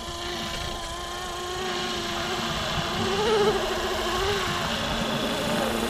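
Fly Wing Bell 206 450-class electric RC helicopter flying, its motor and rotors giving a steady whine whose pitch wavers up and down about halfway through as it holds position.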